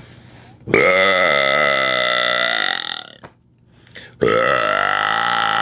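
Two long, loud, deep belches from a performer who burps on purpose for a stream: the first lasts about two seconds, and the second starts about four seconds in.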